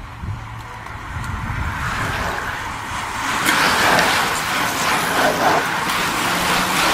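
A bunch of racing bicycles passing close by: tyres hissing on the tarmac and freewheels ticking, growing louder from about a second and a half in and louder again about halfway through as the main group draws level.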